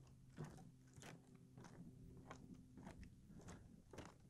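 Faint footsteps walking at a steady pace on a wooden boardwalk, about three steps every two seconds.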